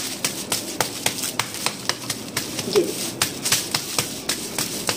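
Wet hands patting and turning a ball of cornmeal (makki roti) dough flat on a polythene sheet: a quick, irregular run of soft pats and slaps, several a second, with the plastic crinkling.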